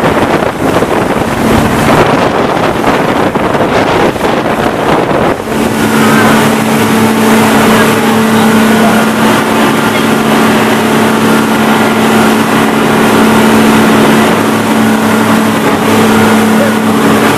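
Motorboat under way. For about the first five seconds wind and water rush over the microphone. Then the boat's engine comes through as a steady hum that holds one pitch over the wash.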